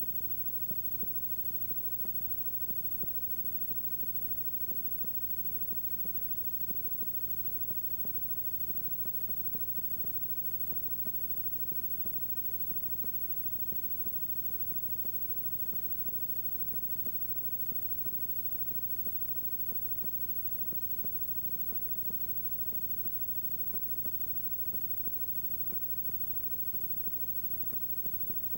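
Steady electrical hum and buzz with a hiss over it, dotted with frequent small clicks: the playback noise of a blank, unrecorded stretch of videotape.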